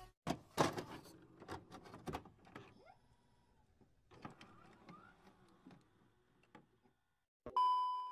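Faint, scattered glitchy clicks and short swishes of animation sound effects, then, about seven and a half seconds in, a steady electronic test-tone beep of the kind played over TV colour bars.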